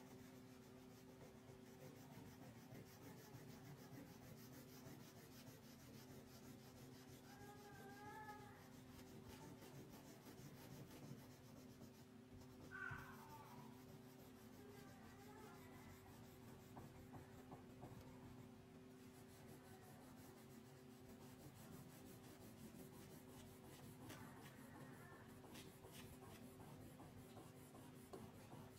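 Faint scratching of a crayon colouring on paper, over a steady low hum. A couple of faint wavering calls sound in the background about a third of the way in and again near halfway, the second the loudest moment.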